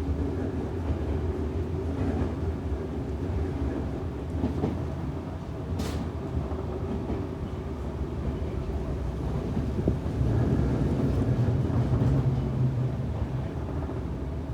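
Running noise heard from inside a Semboku 7000-series electric train car: a steady low rumble of wheels on track and the running gear. A single sharp click comes about six seconds in, and the rumble grows louder with a low steady tone from about ten seconds in.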